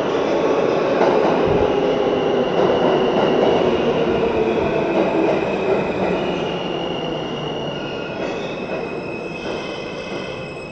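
Subway train pulling into an underground station alongside the platform, its wheels rumbling loudly on the rails. High, thin wheel squeals sound at several pitches over the rumble. The noise is loudest in the first half and dies down as the cars slow past.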